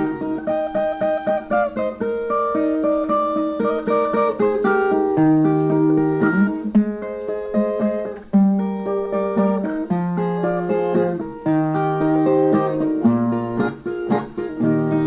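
Instrumental break on a Brazilian viola (ten-string folk guitar): a plucked single-note melody over moving bass notes.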